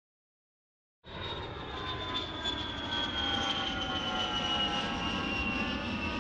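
Jet airliner engine sound effect: a steady rushing noise with a high whine that slowly falls in pitch, starting suddenly about a second in.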